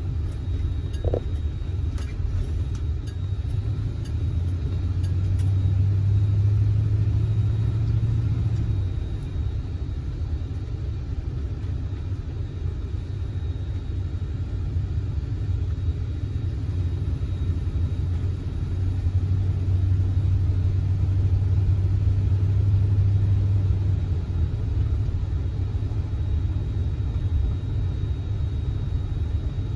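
Low, steady drone of a 1971 Oldsmobile Cutlass S's engine and road noise heard from inside the cabin while driving, swelling louder twice.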